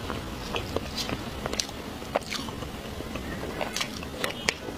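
Close-miked eating sounds: a metal spoon cutting through soft chocolate cake and scraping the small plate, then wet mouth clicks and smacks as the bite is eaten, with sharp little clicks scattered throughout.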